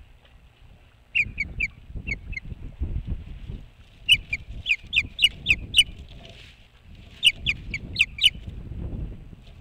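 Osprey giving series of short, sharp, high whistled chirps in bursts: a few about a second in, then longer runs of seven or eight. A low rumbling noise runs underneath.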